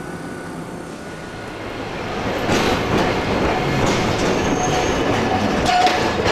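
Iyo Railway 2100-series low-floor tram rolling into the terminal close by, growing louder from about two seconds in. Its wheels clack over the track, with a thin wheel squeal in the second half.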